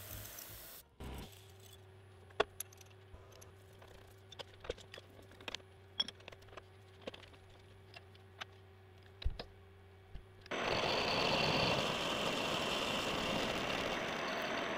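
Scattered metallic clicks and taps as a metal workpiece is handled in a milling-machine vise, over a low steady hum. About ten seconds in, an end mill starts cutting the metal block: a loud, steady milling noise that carries on to the end.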